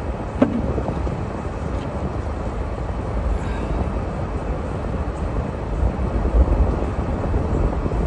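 Steady low rumble of a car being driven on a snow-covered road, with a single sharp click about half a second in; the rumble swells slightly near the end.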